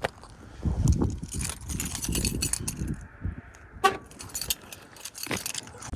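Wind buffeting the microphone in gusts, with scattered sharp clicks and rattles of handled camera gear or footsteps in snow.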